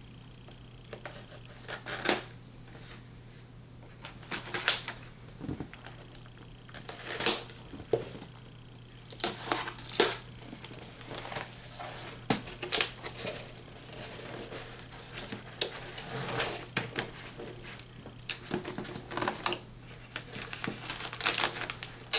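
A shipping box and its packing material being opened by hand: repeated rustling and crinkling with short clicks and taps.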